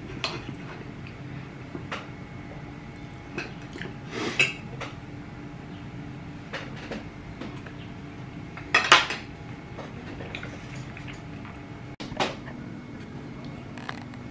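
Knife and fork clinking and scraping on a ceramic plate while cutting food, with scattered light ticks and louder scrapes about four seconds in and again around nine seconds.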